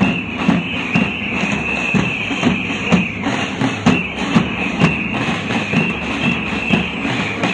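Protest drums beating a steady rhythm, about two beats a second, with a continuous high-pitched tone over them.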